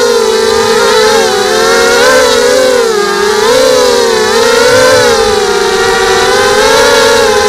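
Mini FPV quadcopter's electric motors and propellers whining in flight, heard close from the onboard camera. The steady whine wavers up and down in pitch as the throttle changes.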